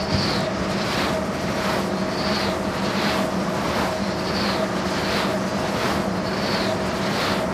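Wind turbine blades turning, giving a rhythmic swish about every two seconds over a steady hum: the blade swish known as aerodynamic or amplitude modulation (AM) noise.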